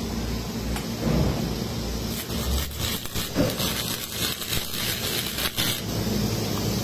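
Electric arc welding on the steel gooseneck tunnel of a reefer container: a dense, irregular crackle and sizzle of the arc starting about two seconds in and stopping near the end. Under it runs a steady low hum.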